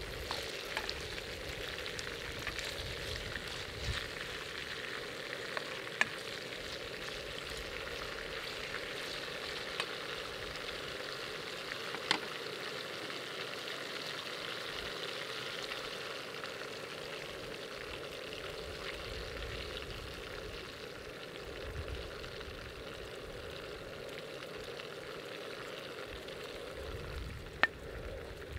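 Olive oil sizzling steadily in a pan of ajillo, with a few sharp pops.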